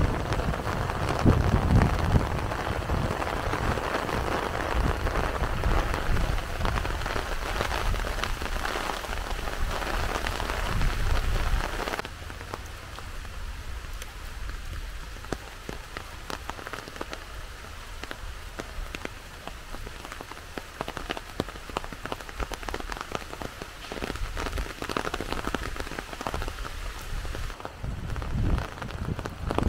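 Heavy rain falling steadily, thick with the ticks of individual drops landing close by. About twelve seconds in the sound drops abruptly in level and loses its deep low rumble; the rumble comes back briefly near the end.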